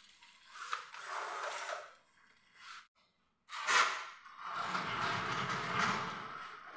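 Aluminium folding door panels being pulled along their overhead track, the rollers running and the hinged frames creaking and rattling. There is a shorter stretch in the first two seconds and a longer, louder one from about four seconds in, starting with a sharp knock.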